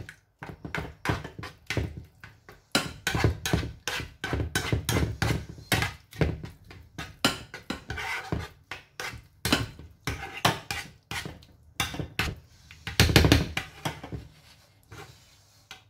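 Spatula stirring a thick béchamel, hake and onion mixture in a frying pan: a quick, uneven run of scrapes and knocks against the pan, loudest about thirteen seconds in.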